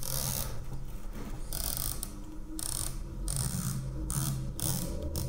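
Elevation turret of a Steiner M7Xi riflescope being turned by hand, giving runs of rapid, crisp detent clicks in several short bursts as the turret is wound back down.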